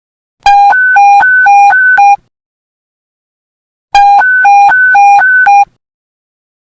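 Police panic button alert tone: a low and a high beep alternating quickly, about seven beeps in under two seconds. The pattern sounds twice with a pause between.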